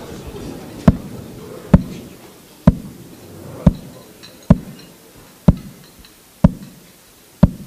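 Metronome beating slowly and evenly, a hollow knock a little under once a second, eight beats in all: the traditional metronome that marks a minute of silence for the dead.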